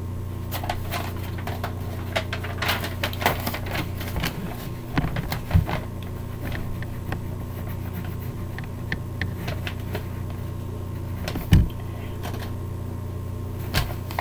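Irregular scratching and tapping of colouring strokes on paper, with a couple of dull knocks against the table, over a steady low hum.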